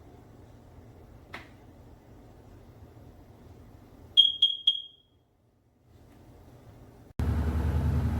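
First Alert CO605 carbon monoxide detector's alarm sounder giving three short, shrill beeps in quick succession. Near the end a steady low rumble starts abruptly.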